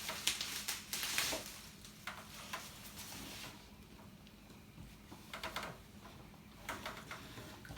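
Rustling and light clicking of packaging being handled, busiest in the first few seconds, then a few brief handling noises later on.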